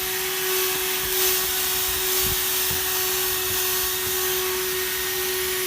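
HOTOR 12 V corded handheld car vacuum running steadily with a high hum and strong airflow hiss, with a few soft knocks as the brush attachment works over car upholstery and picks up cat hair.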